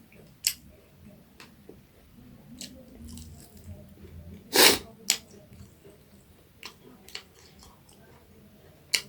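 Close-up mouth sounds of chewing and crunching crispy deep-fried small rohu fish, with scattered sharp crunches and clicks. One much louder sharp sound comes about four and a half seconds in.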